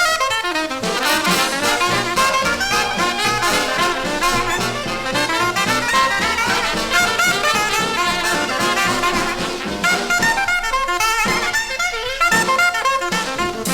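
Jazz music led by brass horns playing a melody.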